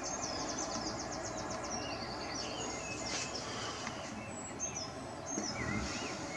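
Birds singing: a fast high trill of repeated notes over the first two seconds, then short wavering whistled phrases near the end, over a steady outdoor background hiss.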